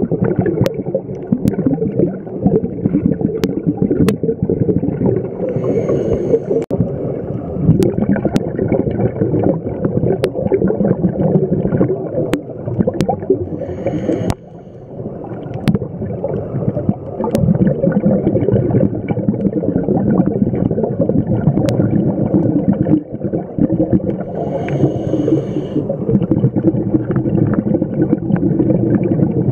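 Scuba regulator breathing heard underwater: long rumbling stretches of exhaust bubbles, broken by a short hiss of inhalation about 6, 14 and 25 seconds in. Faint sharp clicks are scattered throughout.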